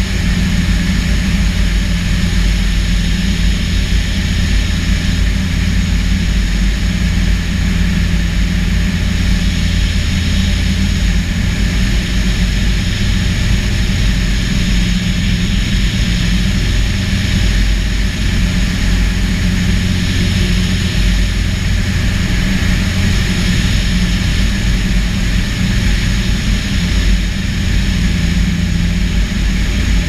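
Balerit ultralight's pusher engine and propeller running steadily in flight, heard close up from a camera mounted under the wing.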